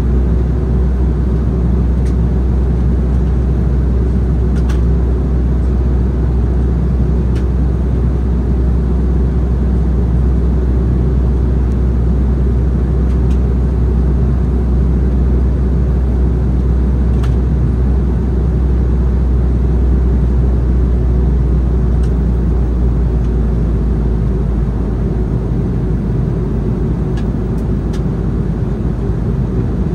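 Steady cabin noise inside an Embraer E190 jet airliner in flight: engine and airflow noise with a strong low drone that eases slightly near the end, plus a few faint ticks.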